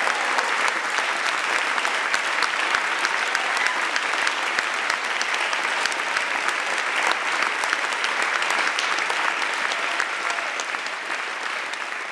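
Audience applauding: a dense, steady wash of hand claps that begins to ease off near the end.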